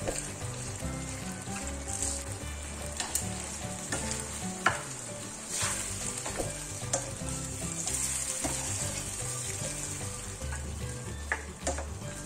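Squid simmering in oyster sauce in a frying pan, sizzling steadily, while a spatula stirs it and knocks and scrapes against the pan a few times, loudest about halfway through.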